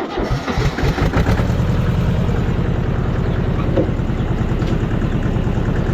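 An engine catching right at the start and settling into a steady run with an even low beat.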